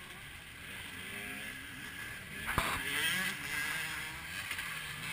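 Motocross bike engines revving, their pitch rising and falling as the bikes ride the track. A single sharp knock comes about two and a half seconds in, followed by a louder stretch of engine noise.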